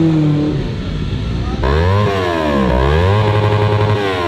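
Motorcycle engines pulling away, then, after a sudden change about a second and a half in, a motorcycle engine revved so its pitch falls and rises twice.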